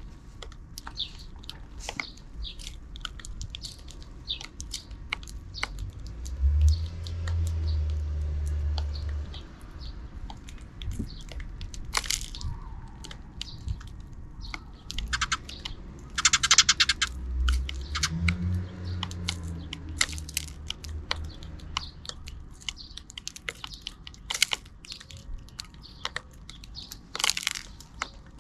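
Sparrows chirping in many short, sharp chirps and clicks, scattered through the whole stretch. A low rumble rises and fades twice underneath.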